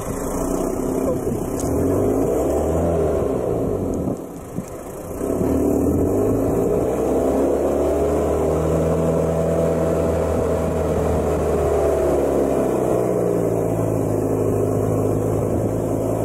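Four-wheel drive's engine heard from inside the cab while driving on a sandy track, revving up and down with the load: the pitch climbs, drops briefly about four seconds in as the throttle eases, rises again and holds, then falls away near the end.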